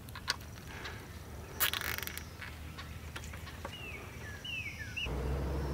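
A light click, then a plastic zip tie pulled tight with a short rasp; a few short falling bird chirps follow.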